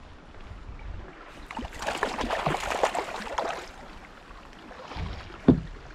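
A small hooked trout splashing at the surface beside a kayak, a rush of water lasting about a second and a half, followed near the end by one sharp knock against the kayak.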